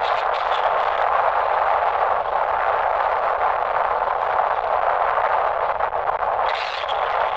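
Space Shuttle Atlantis's launch roar heard from a distance as it climbs on its solid rocket boosters: a steady rushing noise with faint crackle.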